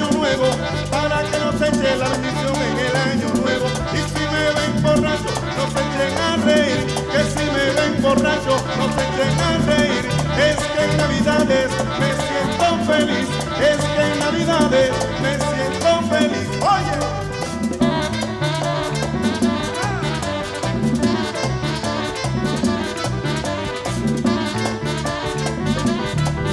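Instrumental stretch of a Dominican merengue: a Latin dance band playing a brisk, steady rhythm with brass and a repeating bass line.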